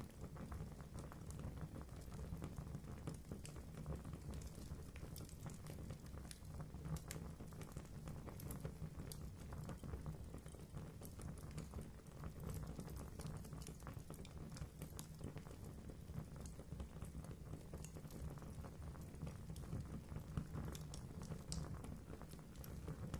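Fire in a fireplace crackling, with frequent small pops and snaps over a low steady rumble.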